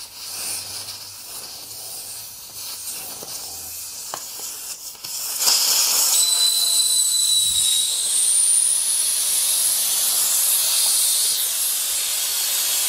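Air hissing out of a car tyre through its valve stem, the valve core being removed with a valve-core tool to deflate it. The hiss grows much louder about halfway through, with a thin whistle for a couple of seconds just after.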